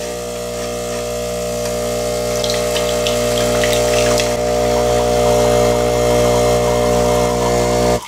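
Philips 1200 Series espresso machine's pump buzzing steadily while it dispenses brewed coffee, with the coffee streaming into a glass measuring cup.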